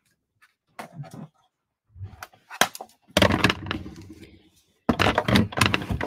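A plastic die-cutting and embossing machine being pulled across a craft table while cardstock is handled. A few light clicks and paper rustles come first. Then there are two stretches of scraping and clattering, the second near the end as the machine slides into place.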